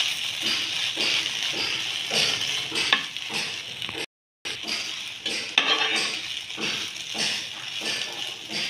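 Okra and potato stir-fry sizzling in a pan while a metal spoon stirs and scrapes through it, with a few sharper clinks of spoon on pan. The sound cuts out for a moment about four seconds in.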